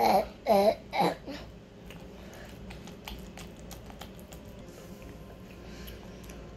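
A person's voice making three short vocal sounds in quick succession, then a few seconds of faint clicks and rustling.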